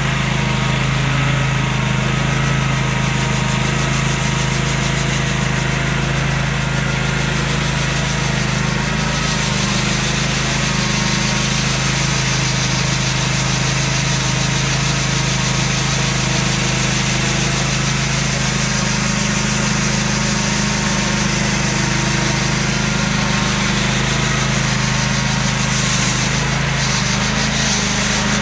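Husqvarna Rider 17 AWD ride-on's engine running steadily while it drives a front-mounted rotary sweeper brush. The spinning brush adds a steady rushing hiss as it sweeps snow off the surface.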